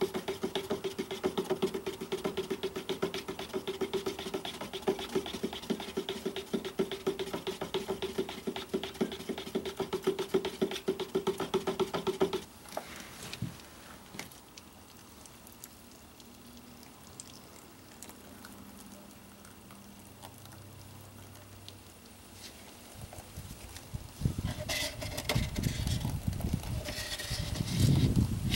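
A wooden stir stick whipped fast around a plastic cup of two-part buoyancy foam, a dense rapid rattle that stops suddenly after about twelve seconds. Near the end, rougher scraping and knocking as the cup is emptied into the cavity.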